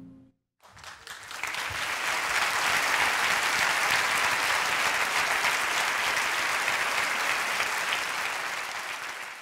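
Concert hall audience applauding after an orchestral song ends. The last held orchestral note dies away at the very start, and after a brief gap the clapping builds over a second or so, stays steady, then fades out near the end.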